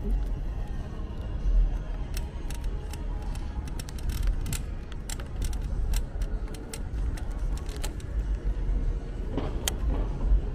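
Wind buffeting the microphone and a low rumble while riding an electric scooter, with a run of light clicks and rattles through the middle.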